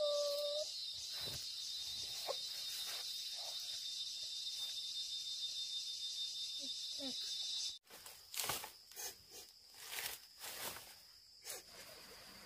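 Steady, high insect chorus with a fast shimmering pulse. It cuts off abruptly about eight seconds in, followed by a few scattered soft knocks or rustles.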